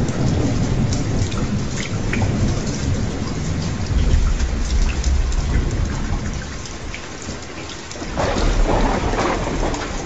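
Steady heavy rain with scattered drop ticks and rolling thunder. A deep rumble swells about four seconds in and fades, then a louder thunder surge breaks in suddenly about eight seconds in.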